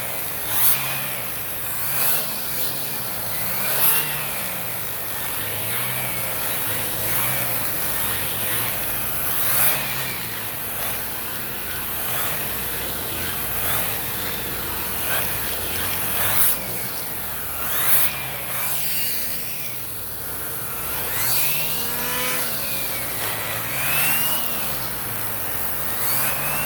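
Hoover Hushtone commercial upright vacuum running, its hose with an air-driven turbo tool worked back and forth over couch upholstery. The pitch rises and falls with each stroke, about every two seconds, with occasional light knocks of the tool.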